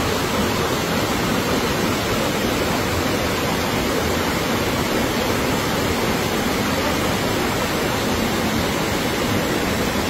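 Muddy floodwater rushing down a slope in a steady torrent, with heavy rain falling.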